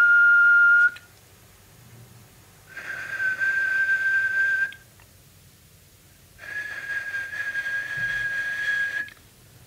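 A person whistling steady held notes, one ending about a second in, then two more of about two seconds each, with breath audible behind the tone. The notes serve as test tones for an Arduino whistle sensor's microphone.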